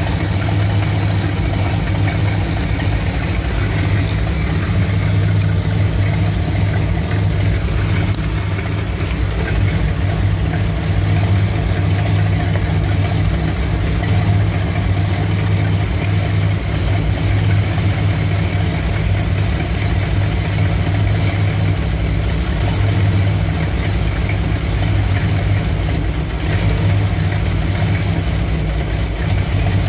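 1975 Dodge B200 van's Mopar 360 (5.9 L) small-block V8 with a two-barrel carburettor idling roughly once warmed up. The rough idle persists after a new ignition coil, so the coil was not the cause.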